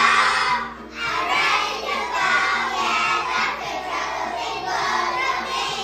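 A group of young children singing an English graduation song together in unison.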